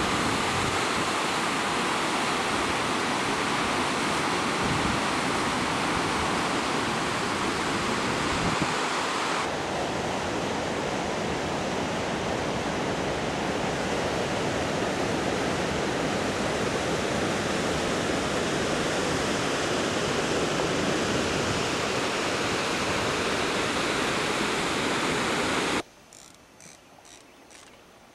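Steady rushing water of a natural waterfall pouring between two lakes. About 26 seconds in it cuts off suddenly, leaving a much quieter background with a few faint knocks.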